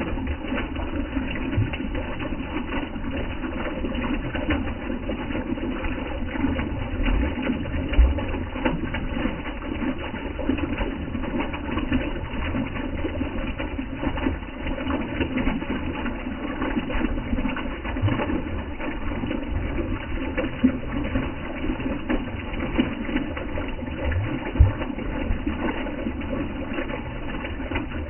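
Small stream of water spilling over a mossy rock, a steady close splashing and gurgling. There is a low thump about eight seconds in and another later on.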